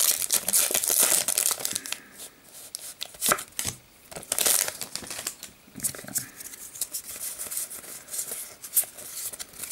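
A foil Pokémon TCG booster pack wrapper torn open and crinkled by hand. The tearing and crinkling is densest in the first two seconds, then comes in shorter separate bursts.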